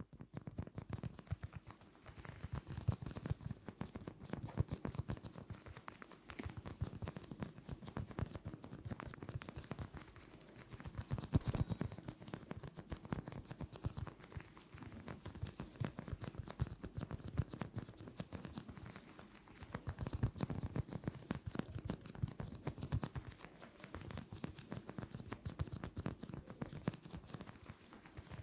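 Fast ASMR tapping and scratching on objects held close to the microphone: a dense, quick run of small clicks and scrapes that swells and eases in waves.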